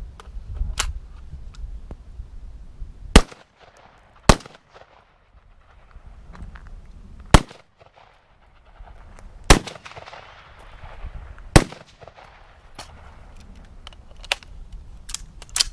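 Rifle shots fired one at a time, about five sharp, loud reports spaced one to four seconds apart, each trailing off in a short echo, with lighter clicks and knocks in between.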